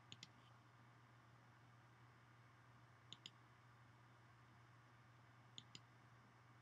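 Near silence with a faint steady low hum, broken three times by a quick double click, about two and a half seconds apart. The clicks sound like a computer mouse button advancing the slide animation, and each pair comes just before new text appears.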